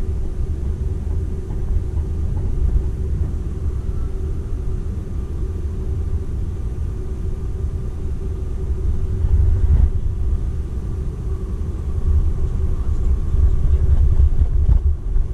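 Running noise inside the cabin of a Seibu 001 series Laview limited express electric train: a steady low rumble of wheels on rail with a faint steady hum, swelling a little about ten seconds in and again near the end.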